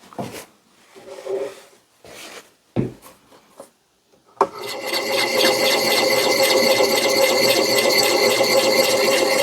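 A few light handling knocks and a click, then about four and a half seconds in an extra-coarse diamond hone starts rasping steadily along the steel edge of an axe bit in quick, even strokes.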